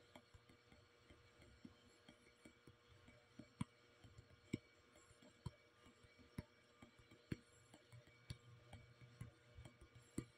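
Near silence with faint sharp clicks, the clearer ones coming about once a second, over a faint steady hum.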